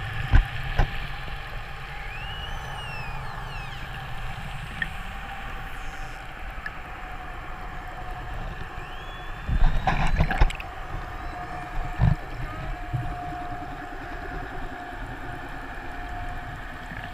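Killer whale (orca) calls recorded underwater: high whistles that rise and fall in pitch, about two seconds in and again near eight seconds, over a steady underwater hum. There are a few sharp knocks near the start and a loud cluster of thumps around ten seconds in.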